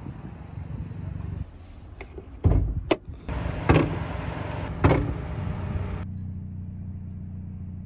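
A low steady hum, then a few loud sudden thumps and a sharp crack between about two and five seconds in. It settles into the Hyundai i30 N Performance's 2.0-litre turbocharged four-cylinder idling steadily, heard from inside the cabin.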